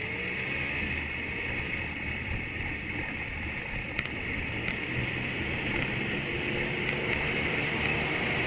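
Steady running noise of a moving vehicle on the road: engine hum under tyre and air noise, with a few short sharp ticks about halfway through and again near the end.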